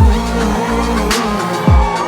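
Live pop band playing an instrumental moment between sung lines: held synth tones over bass, with a deep kick drum that drops in pitch at the start and again near the end, and a sharp drum hit about a second in.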